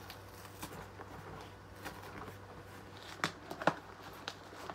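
A cardboard shipping box being worked open by hand, with scattered scrapes and light clicks and two sharp clicks a little over three seconds in.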